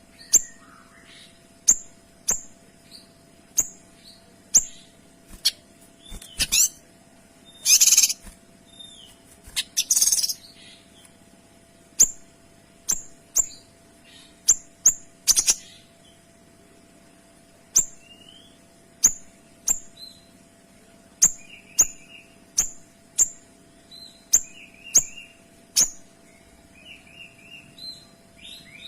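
Kinoy songbird calling in clear, sharp 'shot' notes: short high notes repeated about once a second, with a few longer, harsher bursts around eight, ten and fifteen seconds in.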